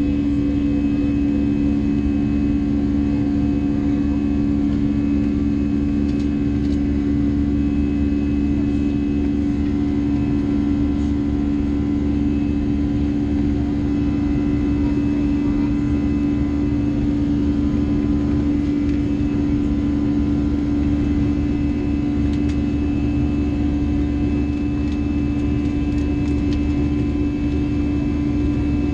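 Steady jet-engine drone of an Airbus A321 climbing after takeoff, heard inside the cabin: a constant low rumble with a steady hum running through it.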